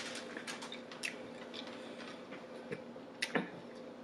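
Close-miked chewing of a bite of breaded chicken finger: soft, irregular mouth clicks and light crunches, with a sharper couple of clicks about three seconds in, over a faint steady hum.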